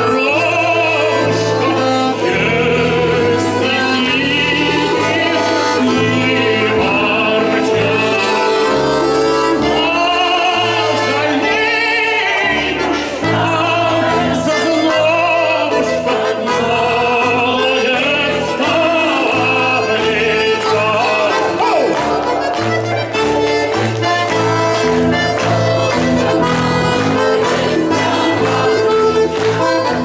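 Live band music: a man singing a melody into a microphone, backed by accordion and acoustic guitar with a steady, rhythmic bass line.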